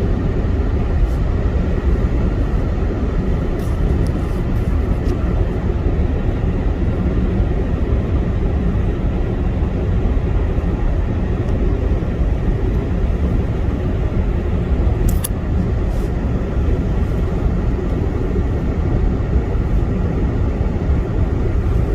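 Steady low rumble of road, tyre and engine noise inside a car's cabin while driving, with two faint clicks a little past the middle.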